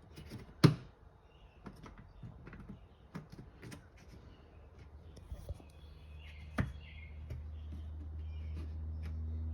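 Scattered clicks and light knocks of hands working on a car door's inner workings, with one sharp click under a second in and another about two-thirds through. A low steady hum fades in over the second half.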